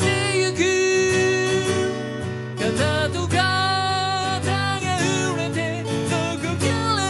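A man singing with long held notes, accompanying himself on a strummed acoustic guitar.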